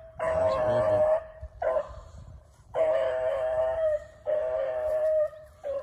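Beagle baying on a rabbit's scent trail: three long drawn-out bawls of about a second each, with two short notes between them. This is the sound of a hound trailing a running rabbit.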